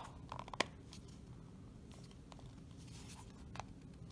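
Plastic power-adapter casing being handled and pushed back together: a sharp click about half a second in, then a few faint ticks.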